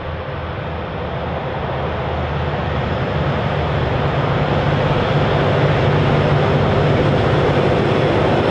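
Two SCT-class diesel-electric locomotives hauling a freight train, their engines running under power as they approach, growing steadily louder.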